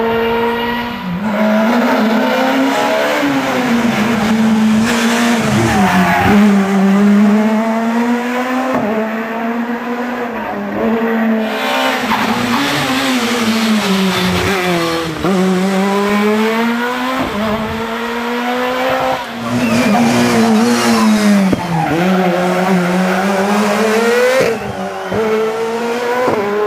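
Škoda Fabia S2000 rally car's four-cylinder engine driven hard, its pitch climbing through each gear and dropping at the shifts and under braking, over and over. Tyres squeal in the corners.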